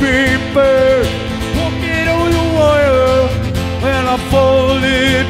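Live country band playing: a man's voice holding long, wavering notes over acoustic guitar and bass.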